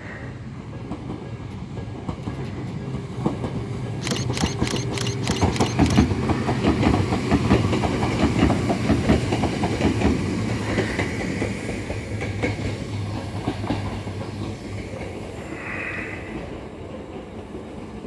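Hakone Tozan Railway electric train passing over a level crossing: a low running hum under rhythmic clacking of the wheels over the rail joints. The clacks start about four seconds in, are loudest in the middle, then fade as the train moves away, with a brief high squeal near the end.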